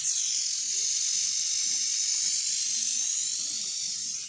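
Steady high-pitched hiss of gas escaping under pressure, easing slightly near the end.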